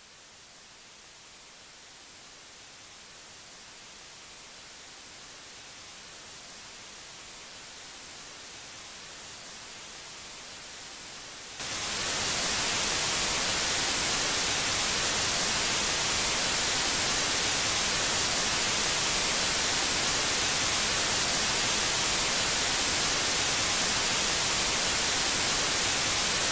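Steady static hiss like white noise, fading up slowly at first, then jumping suddenly much louder about halfway through and holding at that level.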